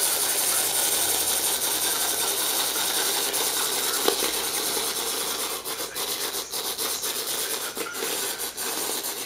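Clockwork wind-up toy dog running with a steady whirring as its spring unwinds. It grows a little weaker in the second half, with a few light clicks.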